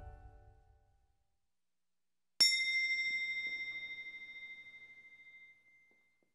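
The last of the soundtrack music fades out within the first second. About two and a half seconds in comes a single bright bell-like ding, high and ringing, which fades away over about three seconds.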